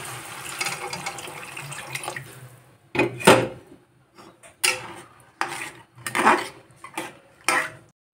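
Water poured into a hot metal kadhai of fried chickpeas and onions, hissing as it hits the pan. From about three seconds in, a metal spatula clatters against the kadhai six or seven times, the loudest near the start of the clatters.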